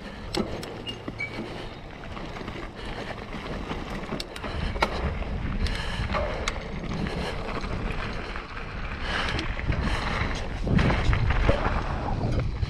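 Mountain bike rolling along a dirt trail: tyre rumble and wind on the microphone, with scattered clicks and rattles from the bike, growing louder from about five seconds in as speed picks up.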